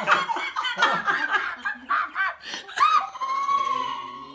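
A woman laughing heartily in rapid bursts, then a steadier held, slightly wavering tone for the last second or so.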